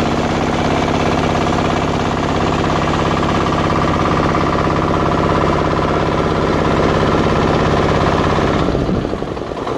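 Small wooden passenger boat's engine running steadily with a fast, even pulse, then dropping away near the end as the boat throttles back to come in to land.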